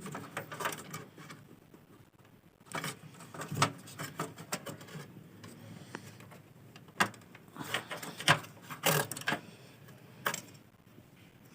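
Scattered clicks and knocks of a RAM module and its slot latches being handled inside a desktop computer.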